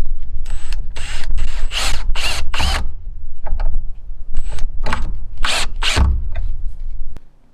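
Cordless drill run in short trigger bursts, working pocket-screw joints in green 2x framing lumber. There is a quick run of about six bursts, a short pause, then another run, ending about seven seconds in.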